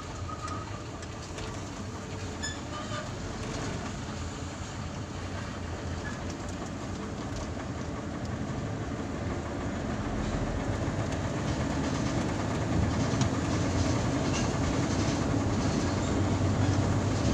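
Engine and road noise inside the cabin of a moving passenger vehicle, with light rattles, growing steadily louder as it picks up speed.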